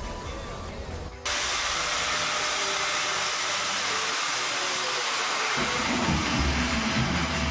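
Electric angle grinder with a cut-off disc, starting about a second in and running steadily at high speed. Near the end it gets a heavier low rumble as the disc cuts through a Jio feature phone.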